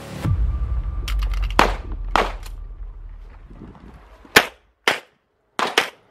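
Pistol shots fired by a competitor shooting a practical-shooting stage, coming singly and in quick pairs at irregular spacing, with a low rumble underneath during the first half.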